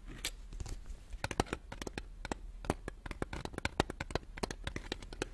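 Fingernails tapping and clicking on a plastic cup of sweets held close to the microphone: a fast, irregular run of sharp clicks.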